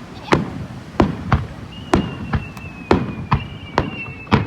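Fireworks going off in quick succession, about two bangs a second, each echoing briefly. From about two seconds in, high whistling tones sound over the bangs, falling slightly in pitch.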